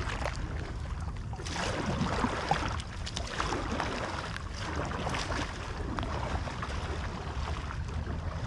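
Small waves lapping and splashing close to the microphone, swelling and easing irregularly, over a steady low rumble of wind on the microphone.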